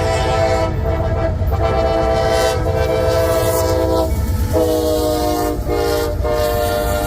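Nathan Airchime K5LA five-chime air horn on a CSX GE AC44CW locomotive sounding a series of long blasts with short breaks, over the low rumble of the passing freight train. The horn chord drops slightly in pitch about four and a half seconds in.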